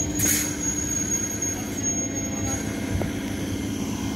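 Eastern Railway EMU local train rolling slowly past with a steady hum. A thin high squeal runs under it and stops about halfway through. There is a short hiss just after the start and a single sharp click about three seconds in.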